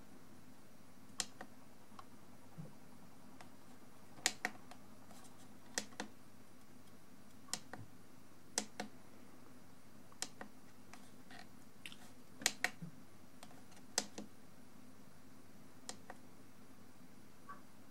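Small push-buttons on a DM4 digital microscope clicking as its settings menu is stepped through: sharp clicks every second or two at an uneven pace, often two in quick succession.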